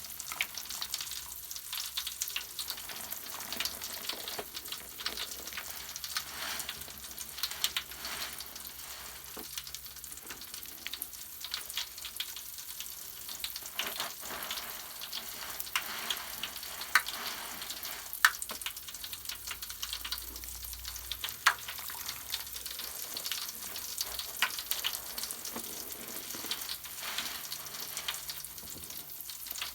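Bubble bath foam crackling and fizzing as its countless small bubbles pop, a continuous fine crackle with a few sharper, louder pops scattered through.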